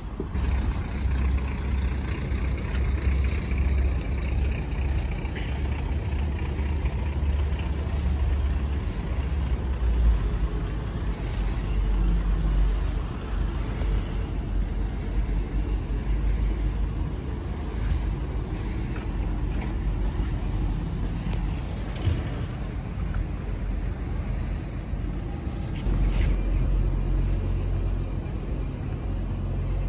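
Steady low rumble of vehicle engines and traffic, swelling and easing in long stretches, with a short sharp click near the end.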